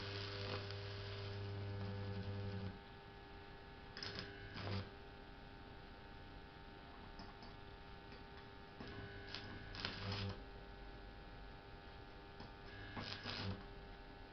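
Small homemade arc welder with a simple choke, striking and holding an arc four times. The arc crackles over a deep electrical buzz: the first arc lasts nearly three seconds and the later ones about a second each. A steady mains hum runs underneath.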